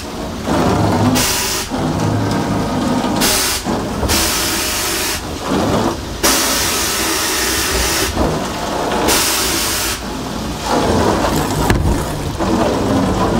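Home-built vapor blaster gun spraying glass-bead and water slurry inside its cabinet, with compressed air fed in: loud hissing blasts that cut in and out about half a dozen times, over a steady wet splashing of slurry. The air is atomizing the slurry, the sign that the blaster works.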